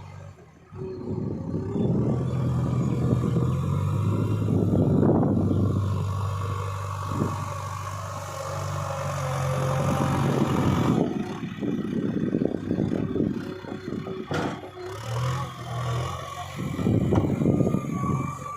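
Heavy diesel machinery working mud: an engine running steadily with its pitch and loudness rising and falling under varying load, mixed with irregular clatter.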